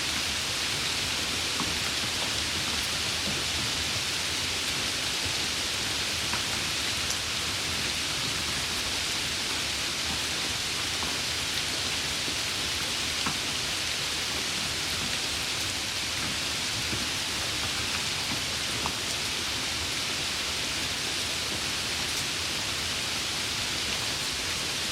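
Heavy rain falling steadily, an even hiss with a few sharper drop ticks scattered through it.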